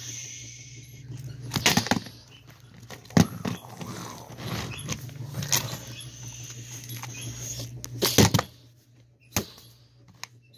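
Scattered knocks and taps a second or two apart, with soft rustling from toys being handled against the wooden bed frame, over a steady low hum that stops about eight seconds in.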